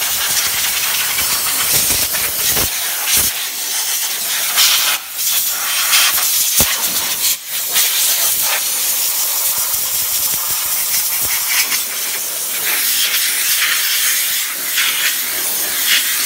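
Compressed-air blow gun hissing as it blasts rinse water off the engine bay, with a few brief breaks and spurts where the trigger is released and squeezed again.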